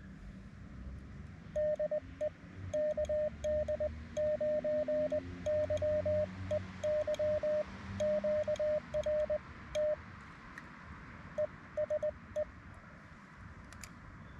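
Morse code (CW) on an amateur radio: a single clear mid-pitched tone keyed on and off in dots and dashes over a faint steady hiss. It starts about a second and a half in, pauses briefly, and stops about twelve seconds in.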